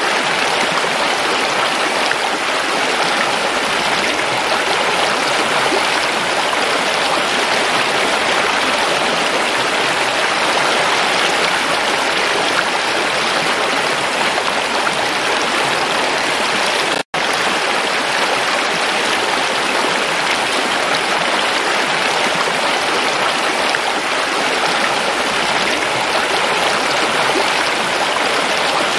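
Shallow rocky stream rushing and splashing over stones, a steady, even rush of water. The sound cuts out for a split second a little past the middle.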